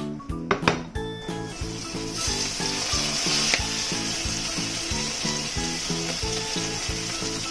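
Fried eggplant slices and minced meat under melted pizza cheese sizzling in a frying pan, a steady hiss that starts about two seconds in, after a sharp clack near the start. Background music with a steady beat plays underneath.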